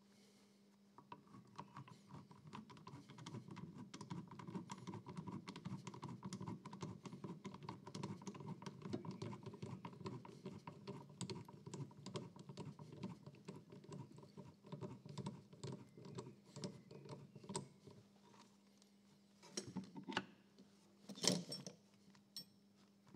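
Rapid, faint metal clicking and scraping as a threaded spreader tool is worked by hand against the spring-loaded jaw mechanism of an Eckold Handformer metal shrinker. The clicking stops a few seconds before the end, followed by a couple of louder metal clunks.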